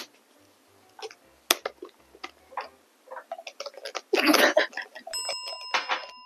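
Scattered sharp clicks and taps close to the microphone, with a louder crackling burst about four seconds in, then a steady high-pitched tone near the end.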